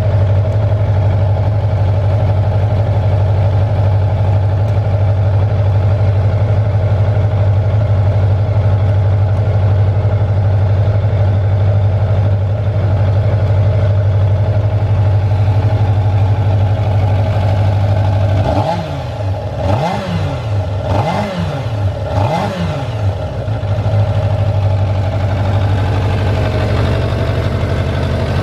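Suzuki GSX-R400's inline-four engine idling steadily, blipped four times in quick succession about two-thirds of the way through, with the revs rising and dropping back cleanly each time before it settles to a steady idle again. The idle is stable and shows no abnormal mechanical noise.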